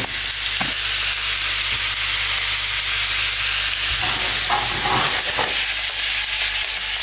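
Raw beef meatballs sizzling in hot olive oil in a nonstick frying pan. About four seconds in, the pan is swirled and the meatballs roll and knock against it for a second or two.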